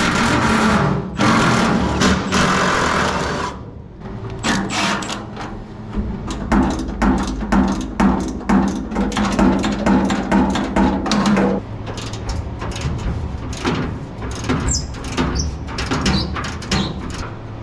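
Cordless driver running in short bursts on the bedside's wheel-arch bolts, then a ratchet wrench clicking in quick irregular runs as the bed bolts are backed out.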